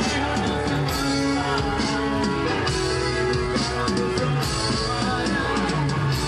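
Kecimol band music, a Sasak street-procession ensemble playing loud at a steady level: an instrumental passage of melody over a steady beat, with no singing.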